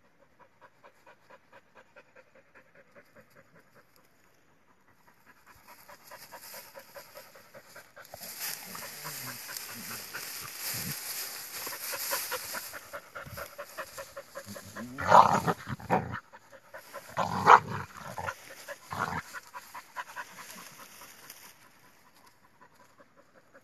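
A cattle dog panting rapidly, about three to four breaths a second. Two loud rough bursts come about two-thirds of the way through.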